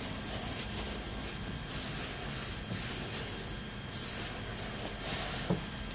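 A cloth rag rubbing over the end of a rocket motor's liner tube, wiping off excess glue with acetone: a handful of short scrubbing strokes, unevenly spaced.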